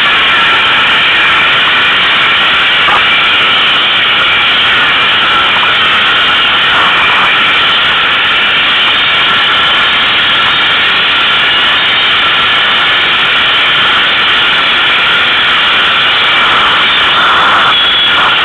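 ATV engine running steadily while the quad is ridden, heard from the machine itself as a loud, even drone.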